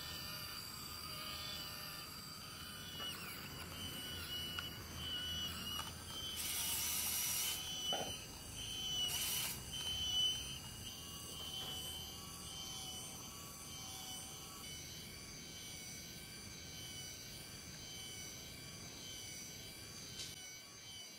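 Small electric motor of a model cement mixer whirring as it tips the drum and pours wet concrete, with two short hissing rushes about six and nine seconds in.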